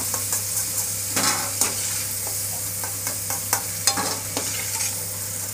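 Hot oil sizzling steadily as pieces of elephant foot yam deep-fry in a stainless steel kadai, done to golden brown. A steel ladle clinks and scrapes against the pan and plate several times as the pieces are lifted out.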